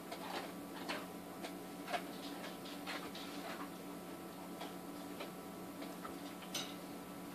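Tissue paper being unwrapped by hand from a small plastic pot: scattered soft crinkles and small clicks at irregular intervals, over a faint steady hum.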